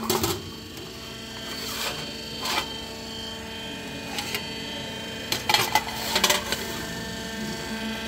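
Steady hum of a die-cutting press running idle, with scattered metallic clinks and rattles of stamped sheet-metal plates and the punched scrap strip being handled; the densest clatter comes about five and a half to six and a half seconds in.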